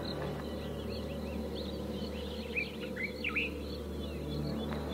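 Wild birds chirping, with a cluster of quick sweeping chirps in the middle, over a low steady drone.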